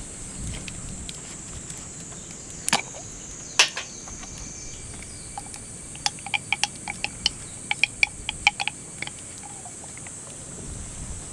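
Steady high-pitched insect drone, with two sharp clicks about three seconds in and a quick run of clicks and taps from about six to nine seconds in.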